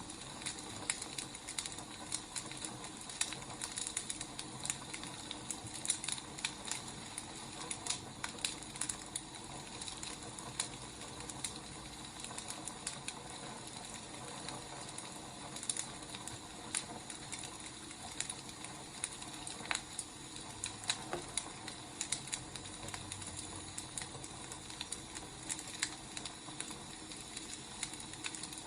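Wood fire burning, a steady soft hiss with frequent irregular crackles and pops.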